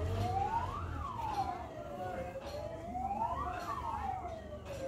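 Fire engine siren wailing, its pitch sweeping up and down about every three seconds, over a low rumble.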